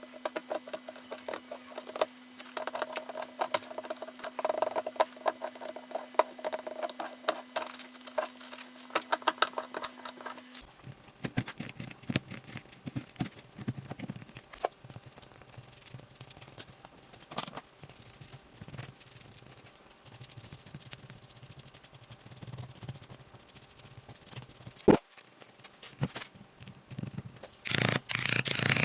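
A small digging tool scraping and chipping at the plaster block of a gemstone excavation kit: irregular scratching and light tapping, with one sharp knock about 25 seconds in and heavier rubbing near the end.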